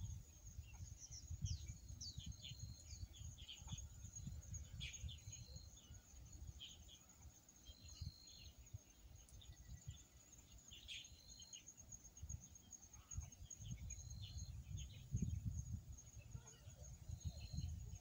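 Birds chirping and calling over a steady high insect drone, with a short, flat whistled note repeated about every three seconds. Low wind rumble on the microphone underneath, gusting stronger near the end.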